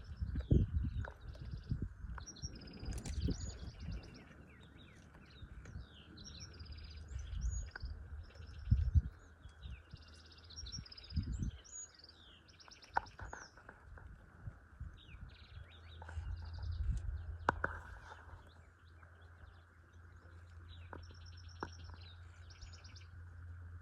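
Several wild birds chirping and trilling in short, overlapping calls, with irregular low thuds underneath.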